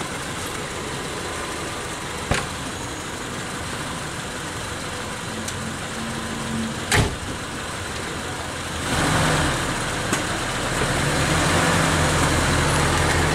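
Mitsubishi Kuda 1600 cc petrol engine, running on a swapped-in Toyota Kijang 7K carburettor, runs steadily at idle. There is a single sharp knock about seven seconds in. About nine seconds in the engine note grows louder and stays up.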